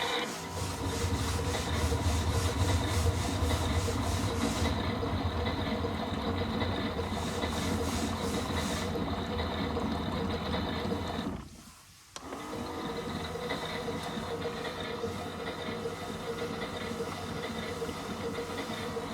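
Miele Novotronic W377 washing machine running during its rinse: a steady low mechanical hum with a whir over it for about eleven seconds, which cuts out suddenly. After a short pause the machine starts running again, with a steadier whir.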